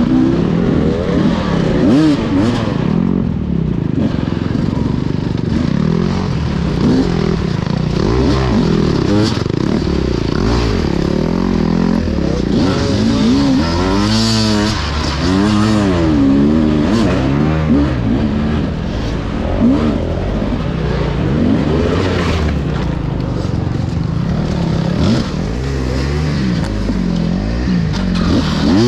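Enduro dirt bike engine revving up and down over and over as it is ridden hard, with scattered knocks and clatter.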